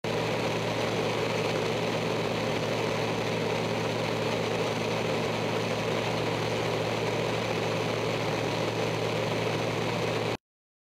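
Extra 300L's six-cylinder Lycoming piston engine and propeller running steadily in flight, heard from inside the cockpit as a constant low drone. It cuts off suddenly near the end.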